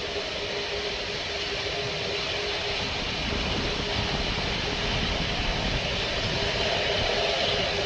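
Four-engine Airbus A380 jet airliner running its engines on departure: a steady, dense jet roar with a faint steady tone in it, growing a little louder toward the end.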